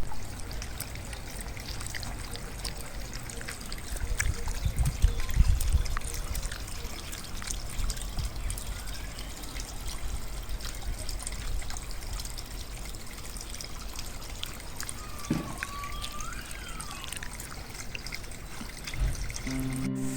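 Water trickling and splashing steadily, with a brief low rumble a few seconds in. Near the end comes a single whistled call that rises and then falls.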